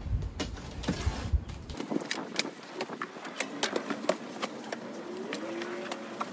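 Cardboard box being cut open with a knife and unpacked: a run of sharp scrapes and clicks of the blade through packing tape and cardboard, then flaps and packing handled.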